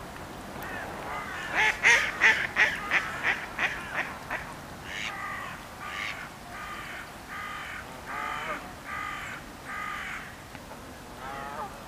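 A duck quacks in a quick run of about eight calls that grow fainter, then a crow caws over and over, about once a second.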